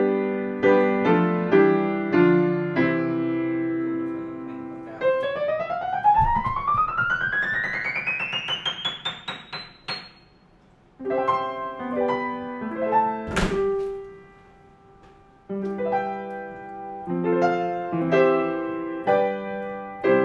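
Yamaha YU3MhC upright piano being played: chords, then a fast run of notes climbing steadily up the keyboard over about five seconds, a short pause, and more chords. A single sharp click sounds partway through the later chords.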